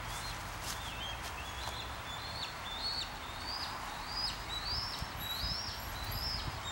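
A bird singing a long series of rising whistled notes, about two a second, over steady outdoor background noise.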